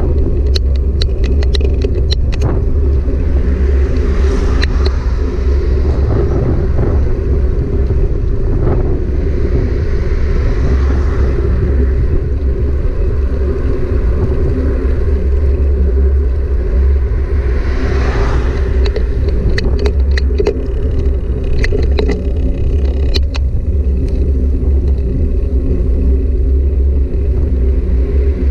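Steady low rumble of a bike in motion on the road, with scattered sharp clicks near the start and again later, and a few swells of hiss that rise and fade.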